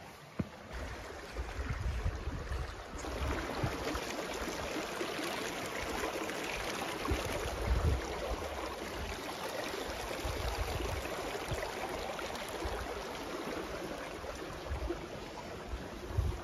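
Mountain creek running over rocks beneath a log footbridge: a steady rush of flowing water that grows louder a few seconds in and then holds, with scattered low bumps underneath.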